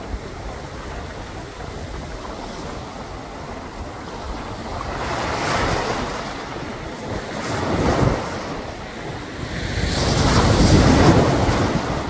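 Sea surf washing in over a rocky shore, with a steady wash of water that swells three times as waves break, the last and loudest near the end.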